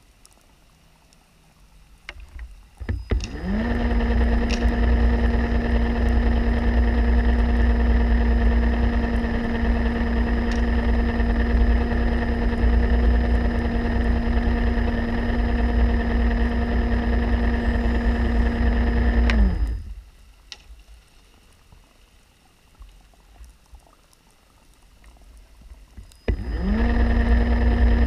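Underwater scooter (diver propulsion vehicle) motor heard underwater: it spins up with a quick rising whine to a steady hum over a low rumble, runs for about sixteen seconds, cuts off abruptly, and spins up again near the end.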